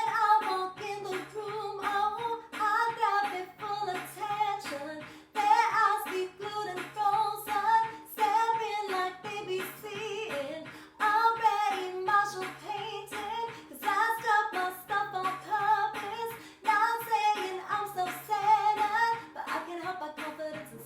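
A woman singing a song to a strummed string instrument, the strumming keeping a steady rhythm under the melody.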